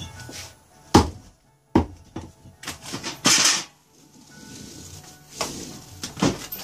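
Hatchet chopping thick rope on a wooden log block: two hard thunks a second in and just after, then rope hissing as it is hauled and swished across the block, and more knocks near the end.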